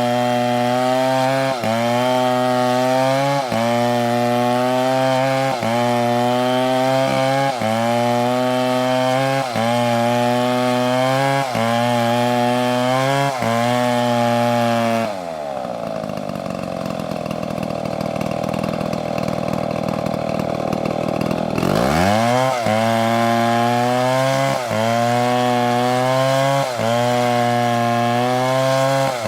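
STIHL MS720 chainsaw cutting wood at full throttle, its engine pitch dipping briefly and recovering about every two seconds under load in the cut. About halfway through, the throttle is let off and the engine falls to a low run for several seconds, then revs steeply back up and cutting resumes.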